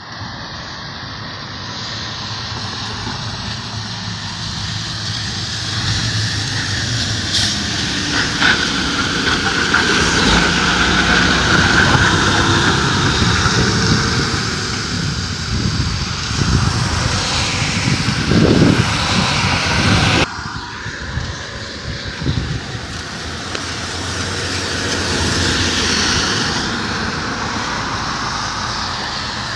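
Tractor-trailer semi trucks going by on wet pavement: diesel engine drone and tyre hiss build to the loudest as a rig passes close, about ten to thirteen seconds in. The sound drops sharply about twenty seconds in, then swells again near the end as another truck comes by.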